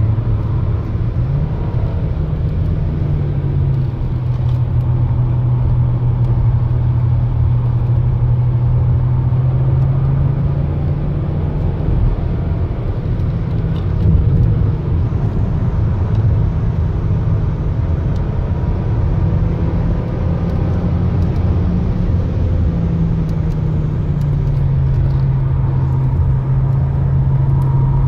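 Heard from inside the cabin, a 2019 Volkswagen Jetta's 1.4 TSI turbocharged four-cylinder engine drones steadily over road and tyre noise while driving. Its pitch rises and falls a few times.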